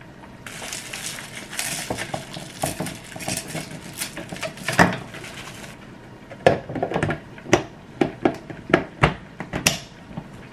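Spoon scraping and clinking on plastic as rice and vegetables are put into a baby-food maker's plastic jar, a scratchy rattle lasting about five seconds. Then about eight sharp plastic knocks and clicks as a container is tapped out and the jar's lid is fitted and snapped shut.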